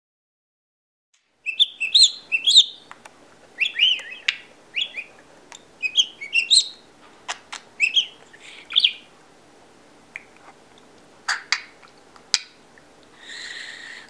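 Budgerigar whistling a run of short, chirpy notes that glide up and down, starting about a second and a half in. A few sharp clicks follow, then a short breathy hiss near the end.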